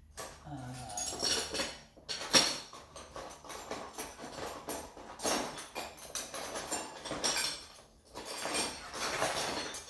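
Irregular rustling and clattering of tools being handled, with one sharp click about two and a half seconds in.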